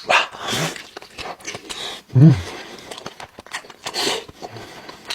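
Eating sounds of beef tongue being bitten and chewed, in irregular bursts, with a short low vocal sound from the eater about two seconds in.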